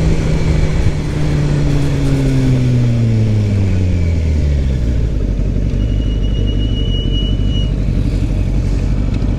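Sport motorcycle engine slowing down, its note falling steadily for about five seconds, then running low and steady under road and wind noise.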